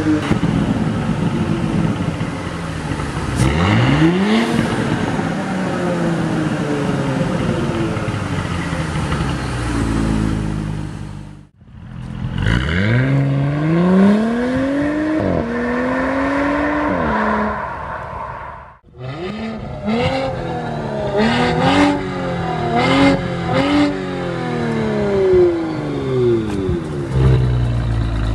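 Porsche Cayenne 3.0T E-Hybrid's turbocharged V6 and exhaust. It is revved once and settles, heard from inside the cabin. Then after a sudden cut it accelerates away, rising in pitch through two gear changes. After another cut it is revved in a quick series of short blips at the tailpipes.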